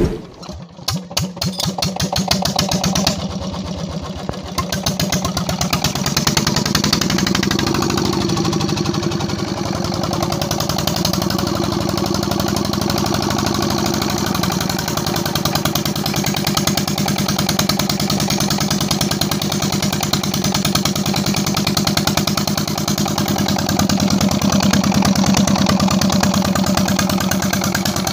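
Single-cylinder Peter-type diesel engine catching after hand cranking, running unevenly for the first few seconds, then settling into a steady run from about six seconds in. It has a new nozzle plunger fitted after the old one was badly damaged by a fire in the cylinder head; the atomiser's ring washer is not yet fitted.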